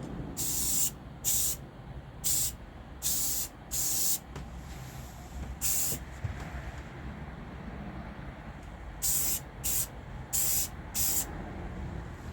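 Aerosol spray-paint can spraying in about ten short bursts of hiss, with pauses between them.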